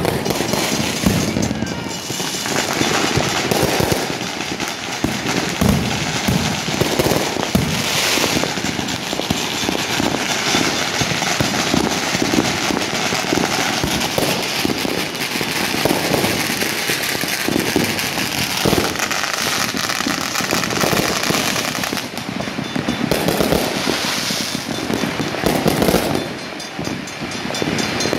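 Many fireworks and firecrackers going off at once: a continuous barrage of overlapping bangs and crackling with no pause.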